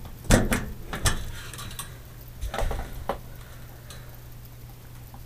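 Light clicks and knocks of hand tools and gear being handled: several in the first second and a couple more about three seconds in, over a steady low hum.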